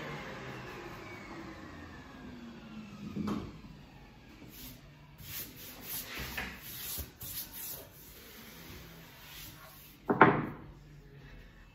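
A power tool's motor winding down, its pitch falling steadily over the first three seconds and ending in a knock. Then soft strokes of a brush swept along a wooden snooker cushion rail, and a loud knock about ten seconds in.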